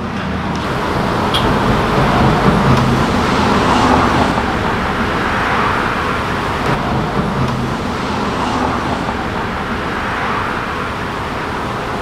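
Honey bees buzzing on an open hive frame: a steady hum that swells over the first few seconds and then eases a little.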